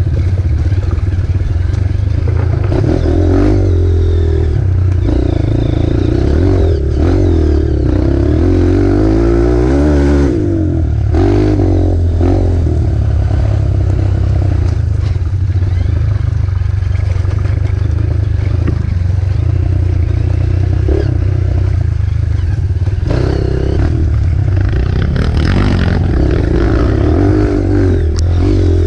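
Trail motorcycle engine running hard over rough ground, its revs rising and falling, with clattering and scraping from the bike.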